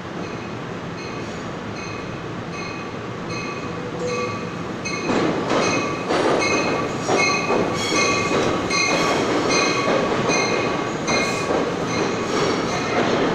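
NJ Transit commuter train pulling into an underground station, its bell ringing steadily about twice a second. From about five seconds in, the rumble of the wheels and cars grows louder as the train rolls along the platform, with some wheel squeal.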